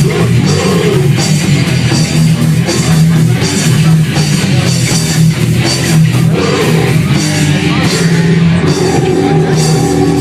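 Punk rock band playing live: loud distorted guitars, bass and pounding drums, with shouted vocals.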